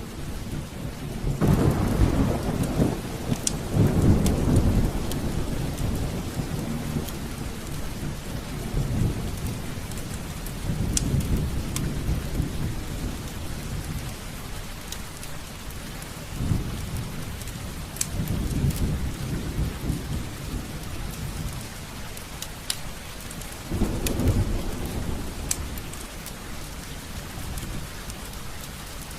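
Heavy rain falling steadily while thunder rolls again and again, with deep rumbles swelling about a second in, around four seconds in, and several more times later. A few sharp pops from a crackling fireplace fire sound over the rain.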